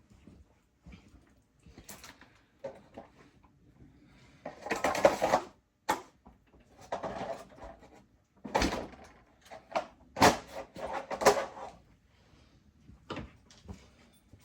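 Irregular clattering and knocking of hard objects being handled, moved and set down, in a string of separate bursts. The loudest clatters come about a third of the way in and again past the middle.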